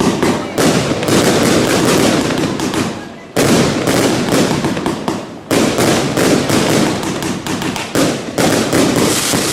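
A dense, continuous barrage of fireworks: rapid crackling bangs, with a surge of louder bangs every two to three seconds, each dying back into crackle.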